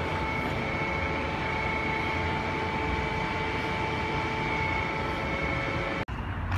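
Steady mechanical drone with several steady high whining tones over it. It cuts off abruptly about six seconds in and gives way to a low hum.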